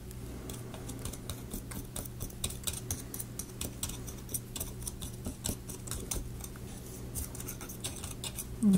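Light, irregular clicking and scraping, several clicks a second, as a stick of lubricant is worked tooth by tooth around the teeth of a laser-cut plywood gear.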